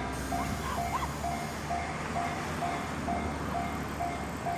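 Japanese level-crossing warning bell ringing, an even electronic ding about twice a second, with a low rumble under it in the first second and a half.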